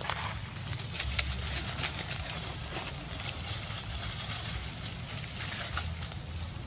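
Dry leaf litter rustling and crackling in short scattered bursts as young macaques scramble and swing over it, over a steady high hiss.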